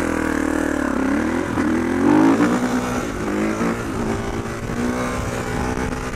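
Kawasaki KX450 dirt bike's single-cylinder four-stroke engine revving as the bike pulls away and rides on, its pitch rising and falling with the throttle.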